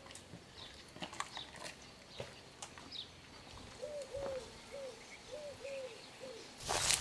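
Outdoor ambience with a bird giving about six short cooing notes in the second half, over faint high chirps and scattered light clicks. A short, loud burst of noise comes just before the end.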